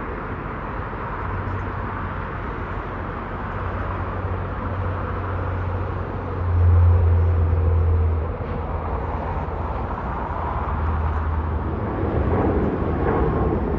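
Jet airliner engines at takeoff power during the takeoff roll, a steady, distant roar with a deep rumble that swells for a couple of seconds midway.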